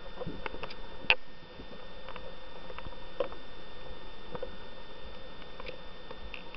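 Underwater ambience picked up by a diving camera: a steady hiss with scattered clicks and crackles, a louder click about a second in, and a faint steady high whine.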